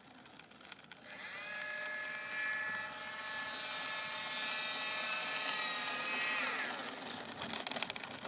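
Electric motor and propeller of a Parkzone P-47 RC model plane whining as it taxis on the ground. About a second in, the pitch jumps up as the throttle opens, holds steady for several seconds, then slides down as the throttle is cut near the end.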